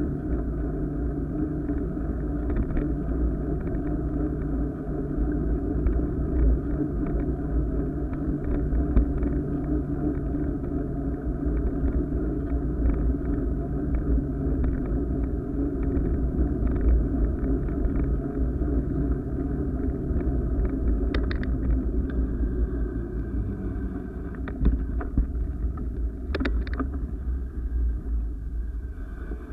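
Steady low rumble of riding along a paved path: tyre noise and wind on the microphone, easing off after about twenty seconds, with a few sharp clicks or rattles near the end.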